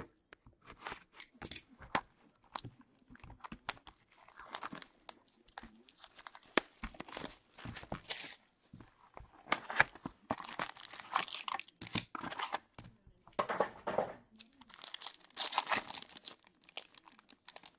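A cardboard box of Upper Deck Ice hockey cards is opened and its packs handled: scattered clicks and taps of cardboard, with bursts of plastic wrapping crinkling. Near the end a card pack is torn open.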